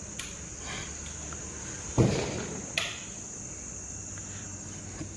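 Crickets chirring in a steady, high-pitched drone. A heavy thump about two seconds in is the loudest sound, followed shortly by a lighter knock.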